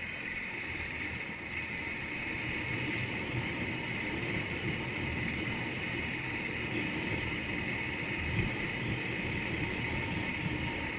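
Motorcycle engine running steadily while riding, heard from a camera on the bike, with one brief knock about eight seconds in.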